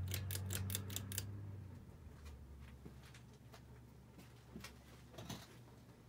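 Hunter Low Profile II ceiling fan's pull chain being pulled, with about six quick clicks in the first second over the motor's low hum. The hum then drops away after about two seconds as the fan changes setting, leaving a fainter running sound with a couple of light clicks near the end.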